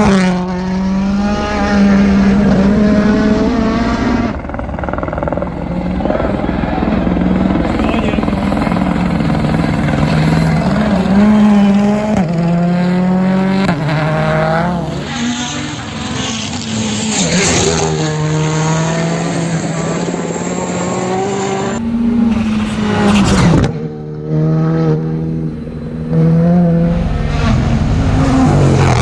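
Rally cars driven flat out on a stage, their engines revving hard and climbing in pitch through one gear after another, each shift breaking the note. Several cars pass in short succession.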